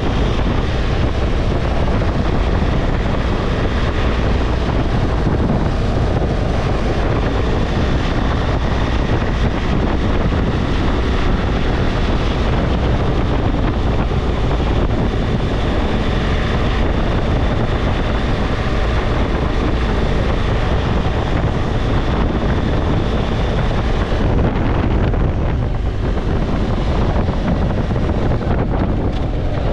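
Wind rushing over the microphone and the steady drone of a BMW R1200GS's boxer-twin engine, cruising at highway speed. The hiss of the wind eases a little near the end.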